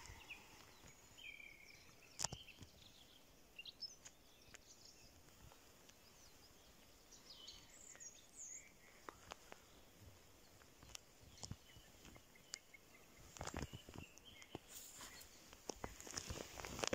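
Quiet snowy forest with a few faint bird chirps in the first half. In the last few seconds, footsteps in deep snow.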